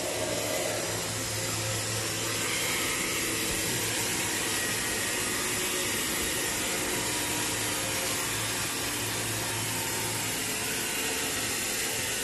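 Steady running noise of an automatic bed-roll band saw cutting machine's electric motors: a constant low hum under an even hiss.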